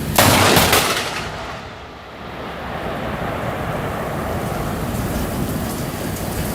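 A loud sharp crash in the first second, then the steady noise of a heavy storm downpour.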